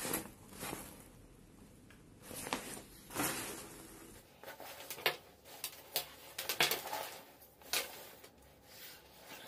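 Nylon backpack fabric rustling and rubbing as the bag is opened and turned over by hand, with several sharp clicks and knocks from its hardware against the table in the second half.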